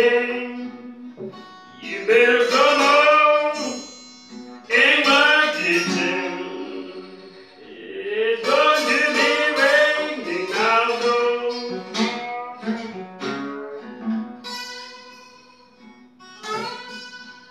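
Acoustic guitar playing a slow country blues, phrases of plucked notes that ring out and fade between them.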